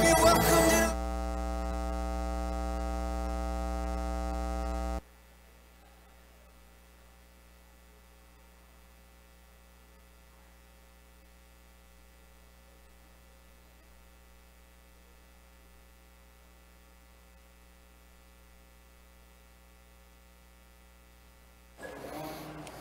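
Music cuts off about a second in, leaving a steady electrical mains hum buzzing through the audio feed. About five seconds in, the hum drops sharply to a faint, steady hum.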